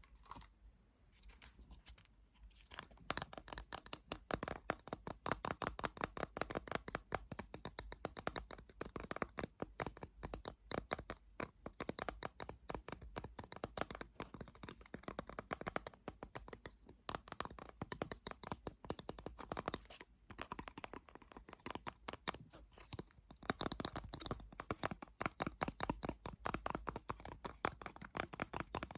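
Fast, dense fingernail tapping and scratching on an object, many light clicks a second, starting about three seconds in.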